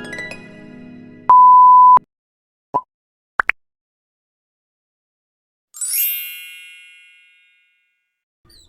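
A run of separate sound effects: the tail of a harp glissando ringing out, then a steady censor-style bleep tone lasting under a second, a short blip, two quick rising chirps, and a bright shimmering ding that rings and fades.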